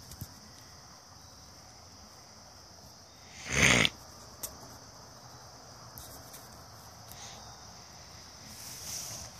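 Steady chirring of crickets and other insects, broken about three and a half seconds in by one loud burst of about half a second, close to the microphone.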